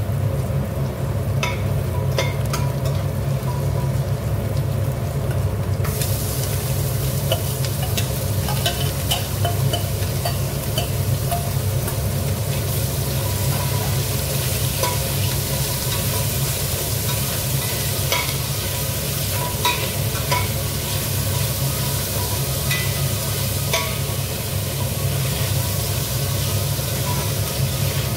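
Onions and chicken pieces sizzling in oil in a stainless steel pot, with a metal spoon scraping and clinking against the pot as they are stirred. The sizzle gets louder about six seconds in, over a steady low hum.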